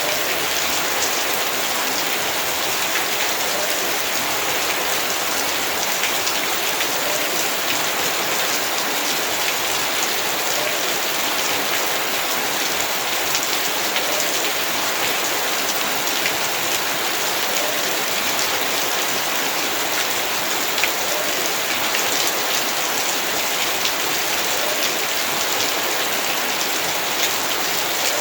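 Heavy rain falling steadily on the ground and surfaces of a yard, a dense even hiss with many small drop ticks.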